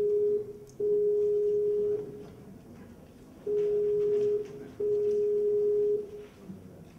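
Video-call ringing tone: one steady pitch sounding in pairs of rings, a pair about every four seconds, while an outgoing call rings unanswered.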